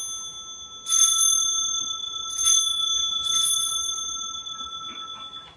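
Altar bell rung at the elevation of the host during the consecration: one bell struck about four times in irregular succession, its clear ringing tone sustained between strikes, then cut off sharply near the end.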